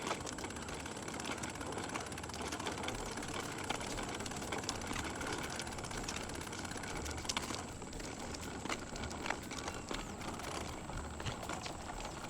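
Small wheels rolling over pavement, a steady rattle with scattered clicks.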